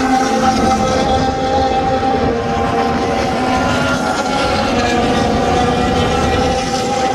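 Formula 1 cars' turbocharged V6 engines running at high revs around the circuit, a loud, steady blend of several engine tones held over a low rumble.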